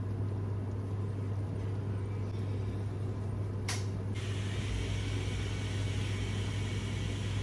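Steady low mechanical hum with a faint hiss. A sharp click comes a little over three and a half seconds in, and after it a higher hiss grows louder and stays.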